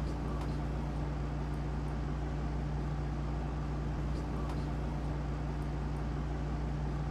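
Steady low background hum with an even hiss, and a few faint ticks scattered through it.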